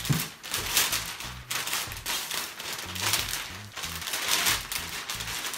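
Clear cellophane crinkling and crackling in irregular bursts as it is bunched and gathered by hand.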